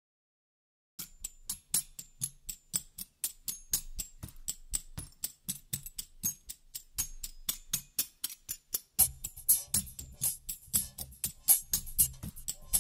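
Background music starting about a second in: a quick, steady percussion beat of crisp ticks, with a bass line that comes in more strongly near the end.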